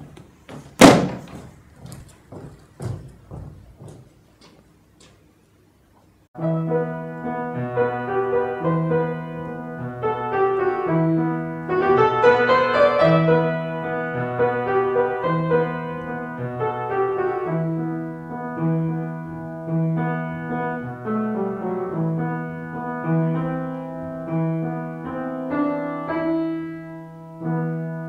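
Solo piano music that starts about six seconds in and plays on. Before it there is a loud thud, then a run of fading knocks about two a second.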